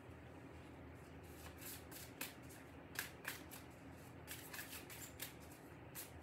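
A deck of cards being shuffled by hand: faint, irregular quick flicks and riffles that begin about a second in.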